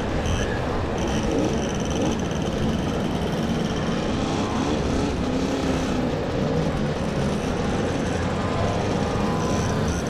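A pack of small two-stroke mopeds riding together at low speed: many little engines buzzing at once in a steady, dense drone, heard from among the group.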